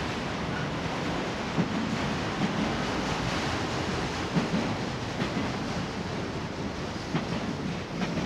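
Union Pacific autorack freight cars rolling past on the rails: a steady rushing rumble of wheels on track, with occasional clicks and knocks.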